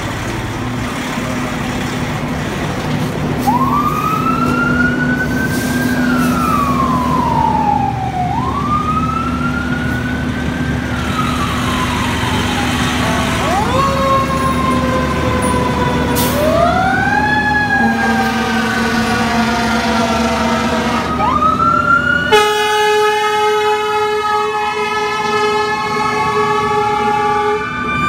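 Fire engine siren wailing in repeated cycles, each rising quickly and falling slowly, over the truck's steady engine running. Near the end the horn sounds twice, the second blast long and loud, while the siren keeps wailing.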